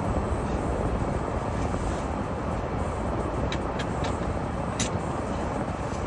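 Vehicle driving through snow: a steady rumble of engine and road noise, with a few faint clicks between about three and a half and five seconds in.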